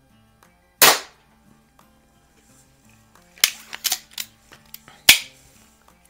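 Baikal IZH-46M single-stroke pneumatic air pistol firing once about a second in, a sharp crack. It is followed by a quick series of clicks and clacks from about three and a half seconds, ending in a loud clack near five seconds as the pistol is handled. Faint background music runs underneath.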